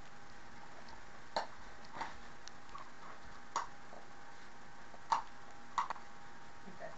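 Footsteps on a hard floor: about five short, sharp taps at uneven intervals over a faint steady whine.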